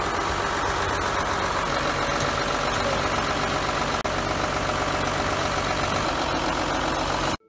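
Farm tractor's diesel engine idling steadily.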